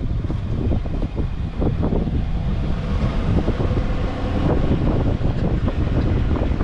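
Wind buffeting the microphone of a camera held out of a moving car, over the car's low road noise.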